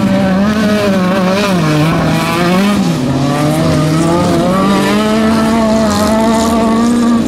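Autocross race cars running on a dirt track, their engines revving up and dropping back again and again as the drivers accelerate and lift through the corner.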